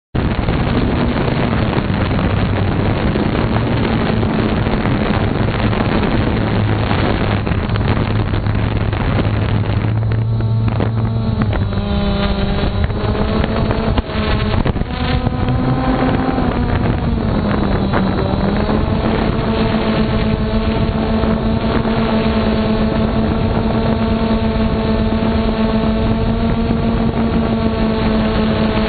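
Electric motors and propellers of a camera drone, heard from the camera it carries: a continuous buzzing whine. For the first ten seconds it is mixed with rushing wind and propeller wash. Its pitch then shifts up and down a few times before holding steady from about twenty seconds in.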